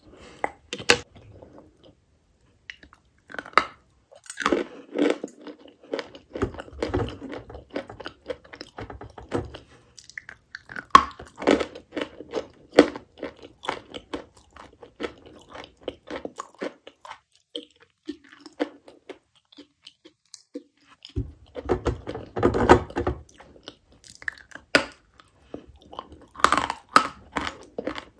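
Dry chalk coated with wet clay paste being bitten and chewed close to the microphone: a run of loud, sharp crunches, with two short pauses.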